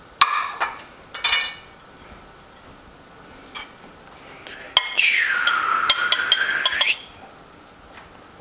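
Two ringing clinks of utensils against dishes, then a table knife scraping on a ceramic plate as it cuts, screeching for about two seconds with a pitch that dips and rises again, with small ticks through it.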